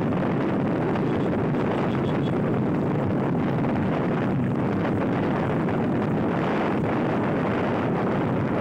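Steady wind rushing over the microphone of a moving vehicle, mixed with road and traffic noise, with no distinct engine note or sudden sounds.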